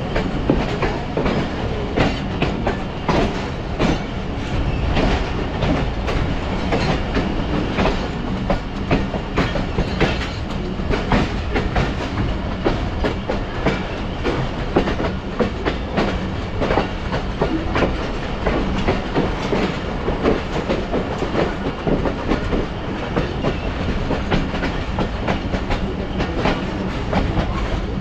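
Passenger train wheels clattering over rail joints and switch points: a steady rumble broken by frequent, irregular sharp clacks.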